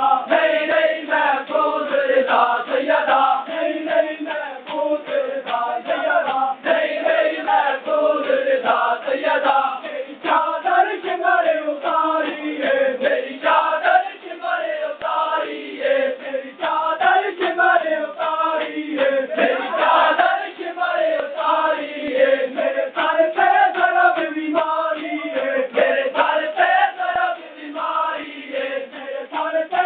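A crowd of men chanting a noha together in unison, with the sharp slaps of hands beating on bare chests in matam running all through the chant.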